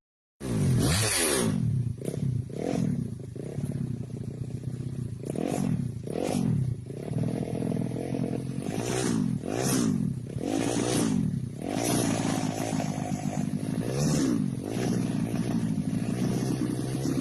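Motorcycle engine being revved again and again in short blips, its pitch climbing and falling back each time, then settling into a steadier idle near the end.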